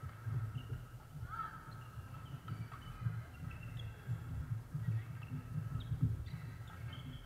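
Sneakers squeaking on a hardwood gym floor and the dull thuds of footsteps as badminton players move about the courts, the squeaks coming in short scattered chirps over steady low thumping.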